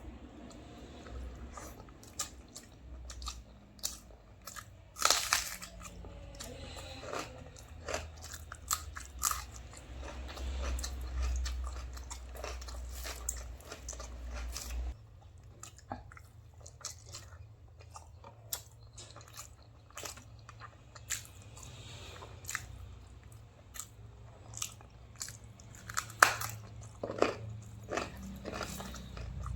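Close-miked eating sounds: a person chewing and biting food, with irregular crunches and wet mouth clicks.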